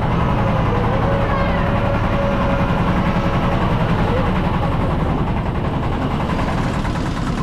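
Miniature park train running, a steady low engine hum with the carriages rolling along.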